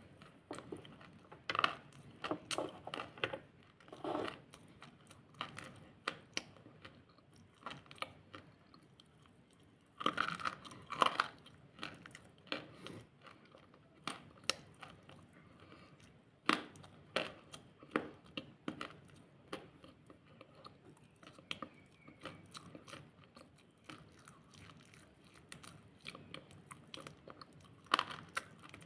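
Close-up crunching and chewing of something brittle: loud bites now and then, with quieter irregular crackling chews between them.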